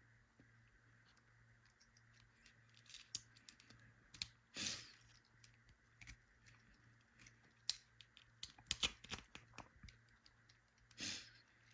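Faint, irregular metal clicks and short rattles of a lock core and key being worked by hand as the still-bound core is wiggled to pull it out of a Chain Key lock's body, with a quick run of clicks about nine seconds in.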